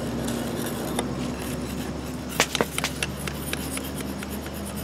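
A steel bar scraping and prying at the spent, cracked sand mold on a freshly thermite-welded rail joint, with a few sharp clicks and knocks about two and a half seconds in, over a steady low hum.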